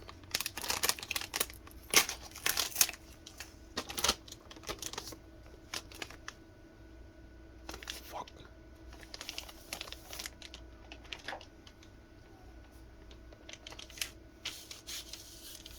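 Keyboard parts being handled by hand: a quick run of clicks, taps and rustling in the first five seconds or so, then scattered clicks and rustles.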